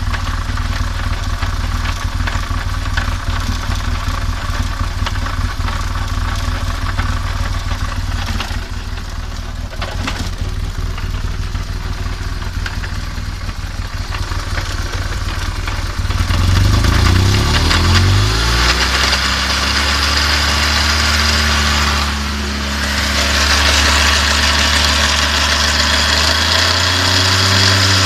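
BMW R1200GS flat-twin (boxer) engine running at a steady idle, then rising in pitch about 16 seconds in and held higher, dipping briefly and rising again before falling back near the end. It is run to show a strange noise that the owner traces to the final drive.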